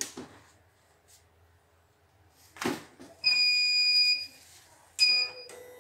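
CNY E900 portable computerized embroidery machine powering up: a click, then one long electronic beep of about a second and a second, shorter beep at the same pitch. A low steady hum starts near the end as the machine starts up.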